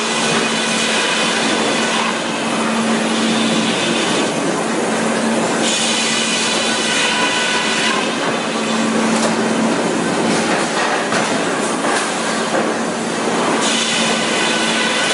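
Industrial sawmill machinery running and cutting timber: a continuous grinding, rushing noise with a steady hum under it and high squealing tones that change every few seconds.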